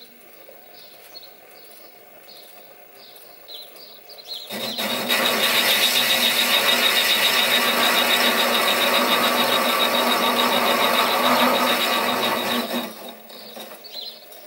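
Sieg SC3 mini lathe turning a four-jaw chuck at 200 RPM, with a faint tick about three times a second. From about four seconds in to about thirteen seconds a carbide insert faces the cylinder flange, a loud hissing cut with a steady high whine, then the lathe runs on lighter with the tool clear.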